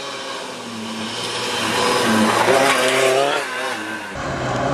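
Historic rally car's engine revving hard as it approaches and passes at speed on a gravel stage, its pitch climbing and dropping with gear changes and loudest about three seconds in, over the hiss of gravel under the tyres. The sound cuts off abruptly near the end.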